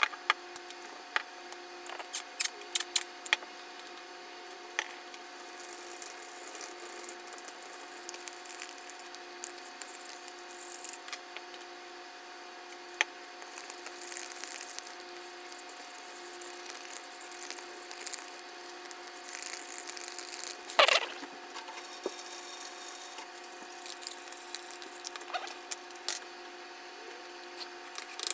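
Sped-up tabletop handling of paint pens and a plastic paint cup: scattered quick clicks and taps over a steady hum, with one louder knock about two-thirds of the way through.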